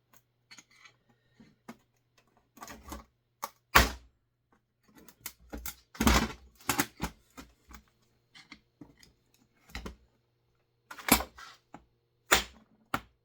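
Irregular sharp metallic knocks and clicks as the flywheel of a Husqvarna 350 chainsaw is tapped and pried loose with hand tools. The loudest knocks come about four and six seconds in.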